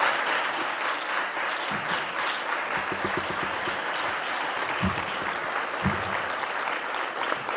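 Audience applauding steadily, a dense patter of many hands clapping, with a couple of dull low thumps about five and six seconds in.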